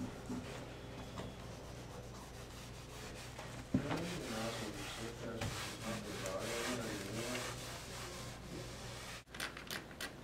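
A cloth rubbed in repeated scratchy strokes over a painted wall, cleaning it, over a steady low room hum. There is one sharp tap a little over a third of the way in.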